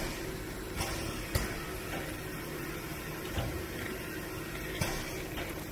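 Two standing steam locomotives hissing steadily, with a faint steady hum and a few short knocks.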